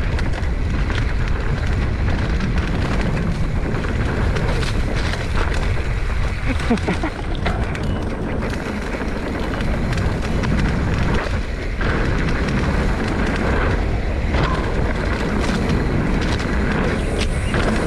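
Wind buffeting the microphone over the rumble of a Giant Trance X 29 mountain bike's tyres on a dirt trail at speed. Frequent clicks and rattles come from the bike over rough ground.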